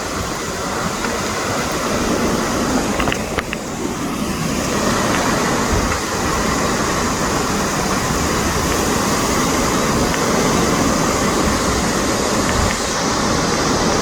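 Hurricane-force wind blowing hard in a continuous rush, buffeting the microphone with a heavy rumble. It grows a little stronger about five seconds in.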